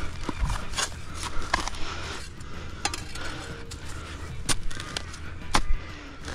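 Pointed metal blade of a hand digging spade scraping and chipping into soil around a water meter pipe, with several sharp scrapes and clinks as it works.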